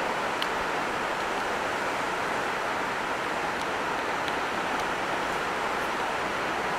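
Steady rushing of churning whitewater in a river rapid, an even, unbroken wash of water noise.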